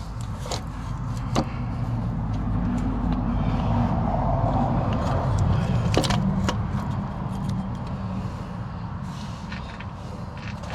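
A motor vehicle passing by, its low rumble swelling to a peak about five seconds in and then fading away, with a few sharp metallic clinks from parts or tools being handled.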